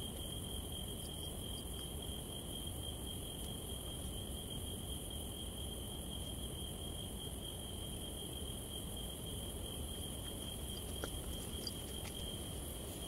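Crickets singing steadily: one continuous high-pitched tone, with a fainter, higher hiss above it, over a low steady rumble.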